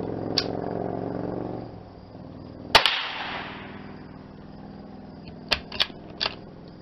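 Single shot from a Glenfield Model 20 bolt-action .22 rimfire rifle, a sharp crack with a short echo about three seconds in. Near the end come three quick clicks as the bolt is worked to eject the case and chamber the next round. A steady low hum fades out early on.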